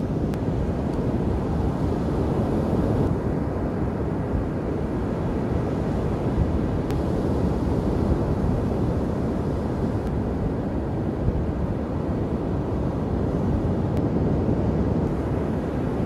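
Steady rush of heavy surf breaking, mixed with wind buffeting the microphone.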